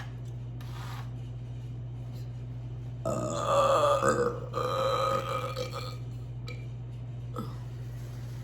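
A woman's long, loud belch about three seconds in, lasting about three seconds with a brief dip partway through.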